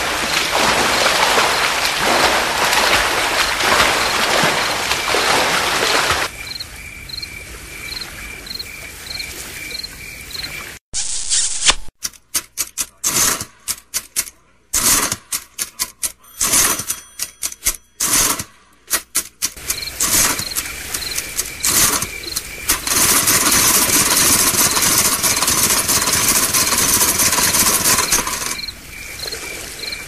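A montage of summer sound effects: a steady wash of seaside surf noise, then insect chirping in regular pairs about twice a second. About eleven seconds in, several seconds of loud, choppy staccato bursts break in, and then the steady noise and the chirping return.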